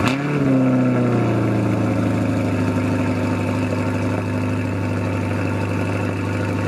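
C8 Corvette's 6.2-litre LT2 V8 firing up through its quad-tip exhaust: a sharp flare of revs at the start, then easing down into a steady, loud idle.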